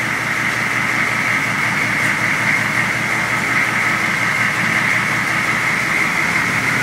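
GM V8 diesel engine idling steadily, warmed up enough to have dropped off its cold-start high idle.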